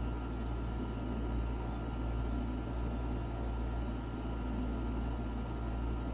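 Steady low hum with a light hiss and a faint constant high tone: background room noise, unchanging throughout.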